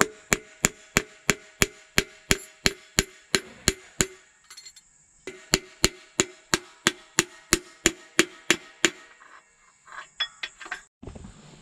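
Hammer blows, about three a second, driving a piston and connecting rod out of a cylinder bore of a Ford big-block V8 engine. The blows break off for a moment midway and then resume. It is a tight fit, with the rod's stud catching on the crankshaft journal.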